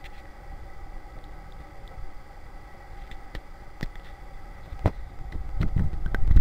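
Steady faint hum of an indoor room with a few sharp clicks, and a low rumble, typical of a handheld camera being moved, that grows louder near the end.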